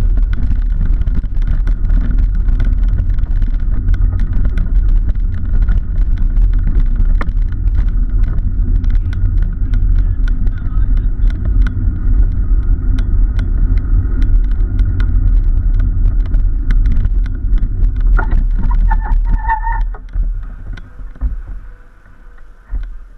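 Cargo bicycle rolling over pavement: a steady low rumble of wind and road noise on the bike-mounted camera, with frequent small rattles and clicks from the bike. The rumble dies down about twenty seconds in.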